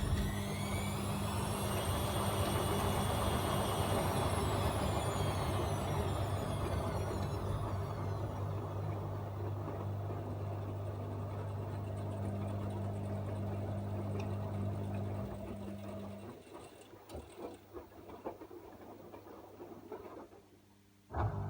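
AEG Öko-Lavamat 74780 washing machine running mid-cycle: a steady low hum under a motor whine that rises and then falls away. About 15 seconds in the hum stops, leaving a few clicks and a short near-quiet pause, then it starts again abruptly near the end.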